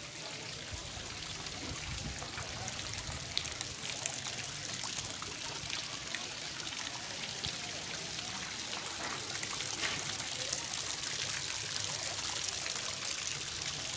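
Water from small fountain jets trickling and splashing steadily into a shallow tiled garden pool.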